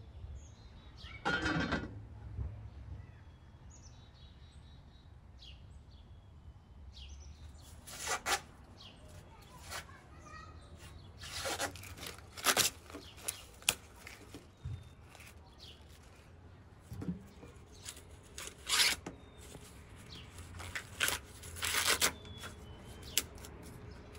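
Fresh ears of sweetcorn being husked by hand: a series of crisp tearing rips as the green husks and silk are pulled away, coming in clusters through the second half. Birds chirp faintly throughout, and a brief clatter sounds about a second in.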